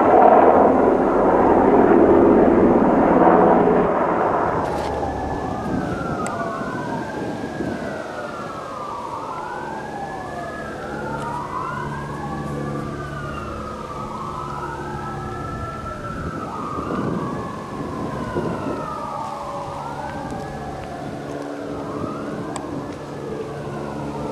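A loud rushing noise for about the first four seconds, then several emergency-vehicle sirens wailing at once, their rising and falling wails overlapping, over a low steady hum.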